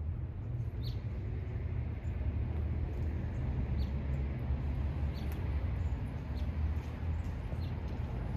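Outdoor ambience: a steady low rumble with a small bird's short, high chirps a few times, every second or two.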